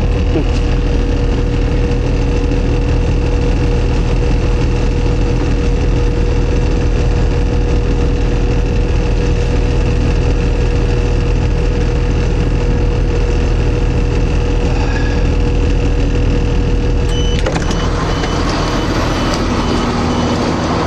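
Passenger train running, heard from inside the carriage: a steady low rumble with a constant whine. About three-quarters of the way through, a sharp clunk comes, the rumble and whine fall away, and a high, rapidly repeating beep starts, typical of the door-release warning as the train arrives at its stop.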